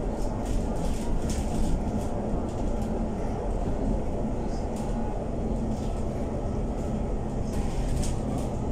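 Interior of an Alexander Dennis Enviro500 MMC 12.8 m Euro 6 double-decker bus under way: a steady low drone of engine and road noise, with a few brief rattles and clicks, the strongest about a second and a half in and near the end.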